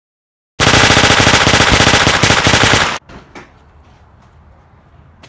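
Automatic gunfire sound effect: a rapid, very loud burst of shots starting about half a second in and lasting about two and a half seconds, cutting off abruptly. Then a faint background with a few light ticks.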